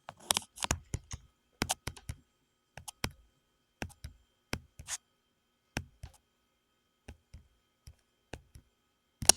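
Irregular clicking of a computer mouse and keyboard, some clicks coming in quick pairs, with the loudest click near the end.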